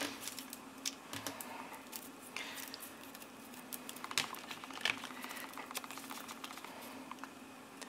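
Scattered soft taps, small clicks and paper rustling as a glued, folded cardstock card is handled and lifted off a cutting mat, with a brief rapid scratchy patch a little past halfway. A faint steady hum lies under it.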